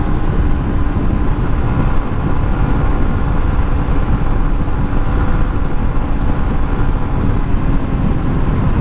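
Steady loud wind rush and rumble on a helmet-mounted action camera's microphone while riding a motorcycle at about 100 km/h, with the motorcycle's engine running underneath as a faint even hum.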